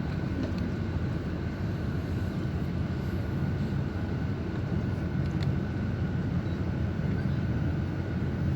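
Mercedes-Benz O-500RSD coach's diesel engine running steadily: a constant low rumble with a faint steady whine above it, no revving.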